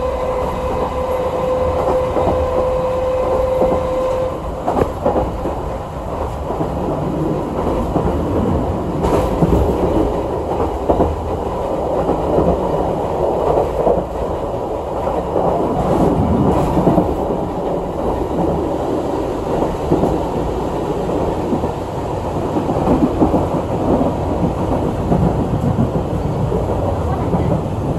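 Chikuho Electric Railway 3000-series electric train running, heard from inside the passenger car: a continuous rumble of wheels on rails with a few rail-joint clacks. A steady whine heard at first stops about four seconds in.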